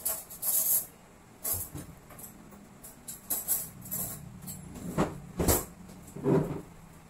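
Someone rummaging low in the kitchen, moving things about: a run of short rustles and knocks, with the loudest knocks about five seconds in.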